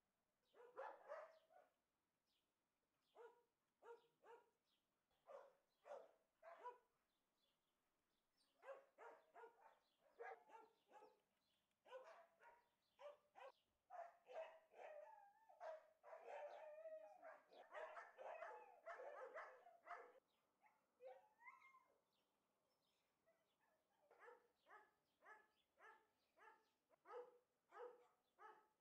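Dog barking in repeated runs of short barks, fairly faint, with the busiest stretch through the middle.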